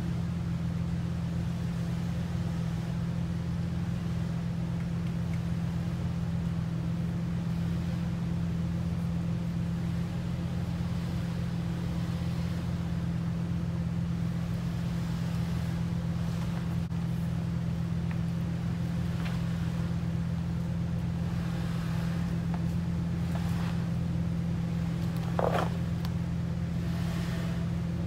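Jeep engine idling steadily: a low, even hum with no revving.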